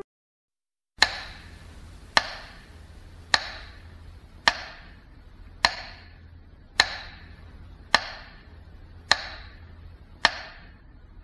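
After about a second of silence, a sharp knock repeats at an even pace, about once a second, nine strikes in all, each trailing off in a short ringing decay.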